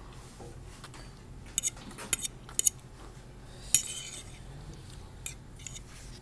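Metal fork scraping and clinking against a ceramic plate as the last noodles are gathered up: a scattered series of short, sharp clicks, the loudest about three and a half seconds in.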